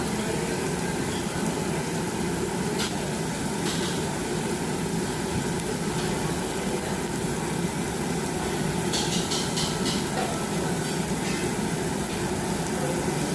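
Steady hum and hiss of restaurant ambience, with a few faint light clinks around three to four seconds in and again around nine seconds in.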